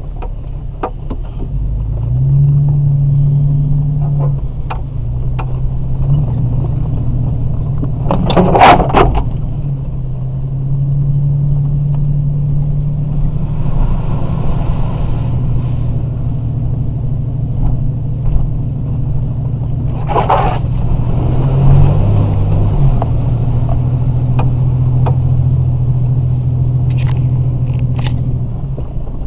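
Vehicle engine heard from inside the cab while driving a rough dirt trail: a steady low drone whose pitch steps up and down as the throttle changes. Two short, loud scraping noises come about 9 and 20 seconds in.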